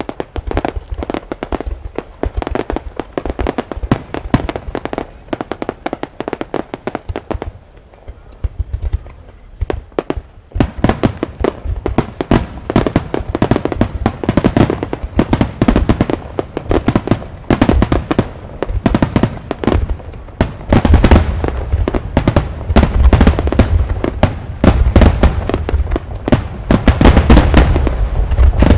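Extra-large wide starmine fireworks: a rapid barrage of shell bursts, many bangs a second. The barrage thins briefly about eight seconds in, then comes back denser and louder, building to its heaviest, deepest booms in the last third.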